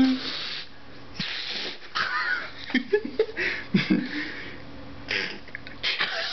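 Breathy, stifled laughter: a string of short hissing exhales and snickers with a few brief squeaky voiced bits.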